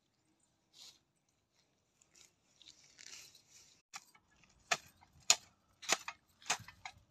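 Short-handled hoe chopping into the dry soil around a sapling: four sharp strikes a little over half a second apart, starting just past halfway. Before that, a soft rustle of dry grass and weeds being handled.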